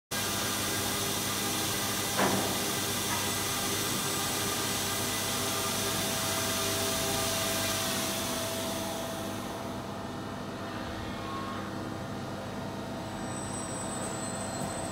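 Industrial machinery running steadily in a robotic production cell: a hum with several steady tones under a loud hiss that fades away about nine seconds in. There is one sharp knock about two seconds in.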